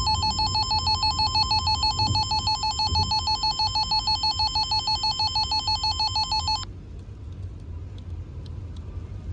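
Emergency Alert System attention signal: a loud, rapidly pulsing electronic alarm tone with many overtones that stops suddenly about two-thirds of the way through, leaving a low background hum. The tone marks the start of a new emergency alert.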